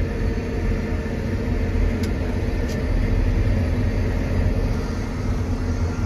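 Tractor engine running steadily, heard from inside the cab as a low, even drone.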